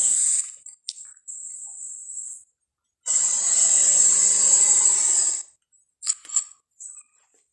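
Triceratops sound effect: a loud, rough animal-like call about two and a half seconds long, preceded by a short hiss and followed by a few short clicks.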